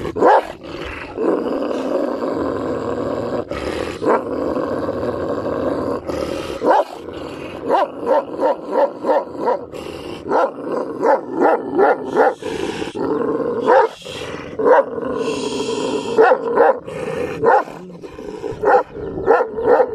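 Kangal shepherd dogs in an aggressive standoff: a deep, continuous growl for the first six seconds or so, then a run of short, sharp barks and snarls about twice a second.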